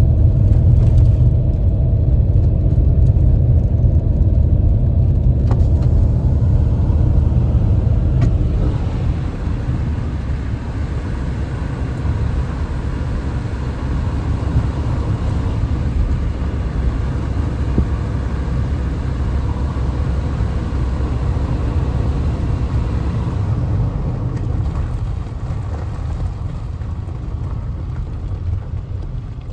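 Steady low rumble of a motor vehicle running, its tone shifting about a third of the way in and easing off near the end.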